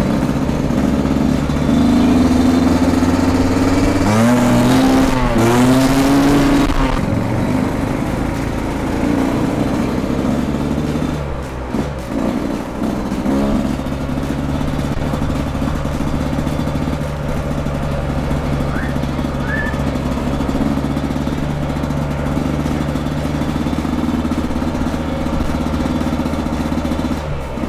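Yamaha YZ125X two-stroke 125 cc single-cylinder dirt bike on the move. The engine revs up and down sharply about four to seven seconds in, then runs fairly steadily.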